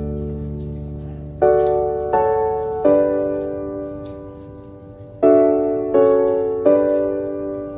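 Soft background piano music: slow chords struck in groups of three, each ringing and fading away.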